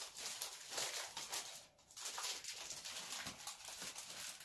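Clear plastic packaging bag crinkling and crackling in a dense run of small crackles as it is handled and pulled open, with a brief pause a little under two seconds in.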